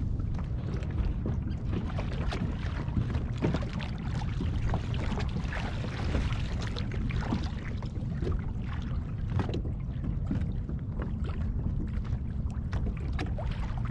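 Small waves lapping and slapping irregularly against the hull of a drifting fishing kayak, over a steady low rumble of wind on the microphone.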